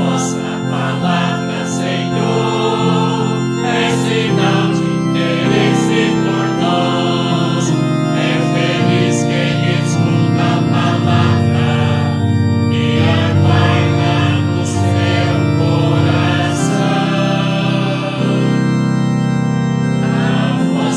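Organ music playing slow, held chords in a steady church hymn.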